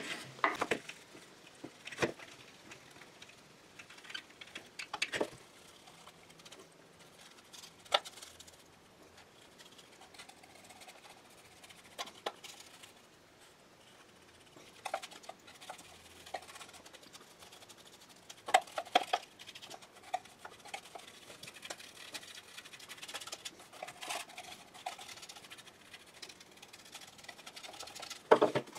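Small taps and clicks of a paint bottle, a paintbrush and a wooden model boat hull being handled on a wooden workbench, scattered a few seconds apart between quiet stretches.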